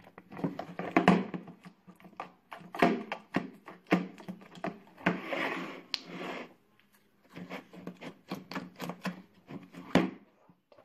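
Hard plastic compartment box and its clear hinged lid being handled: irregular clicks and knocks of plastic on plastic and on the table, with a short rustling scrape about five seconds in.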